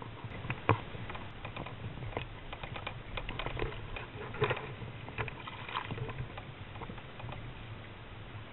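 An irregular series of small knocks and clicks, loudest about a second in and again midway, over a steady low hum.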